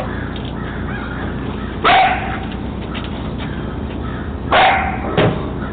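Three-month-old German Shepherd puppy barking: three short barks, one about two seconds in and two close together near the end.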